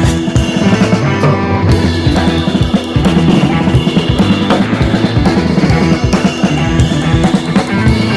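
Background music: a rock track with a steady drum-kit beat and bass.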